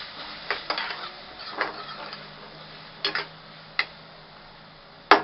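Steel spatula stirring spiced potatoes and peas in a kadai, scraping the pan and knocking against its side a handful of times over a faint sizzle, with the sharpest knock near the end.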